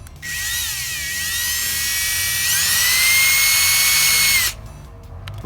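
Electric drill with a 9/64-inch bit boring a pilot hole for a weep hole in the bottom of a window frame. The motor whines, slows briefly about a second in, speeds up about halfway through and holds, then stops suddenly.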